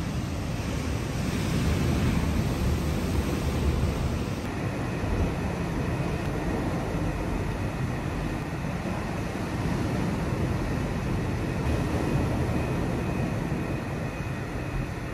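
Ocean surf breaking in a steady rush that swells and eases, with wind rumbling on the microphone.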